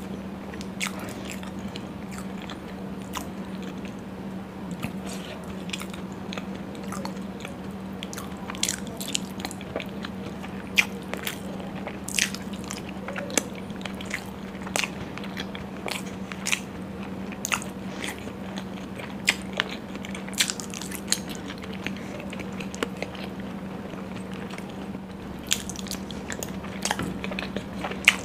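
Close-miked chewing and mouth sounds of someone eating soft puri and paneer in gravy: irregular wet smacks and clicks, several a second at times, over a steady low hum.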